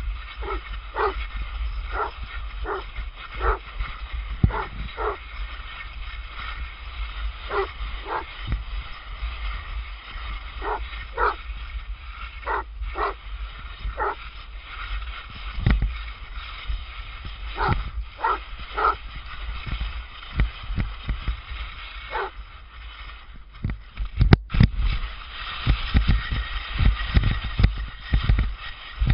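A dog barking repeatedly, short single barks roughly once a second, some in quick pairs, over the low rumble of skis sliding on snow. The barking stops a little after twenty seconds, leaving the scrape and thumps of the skis.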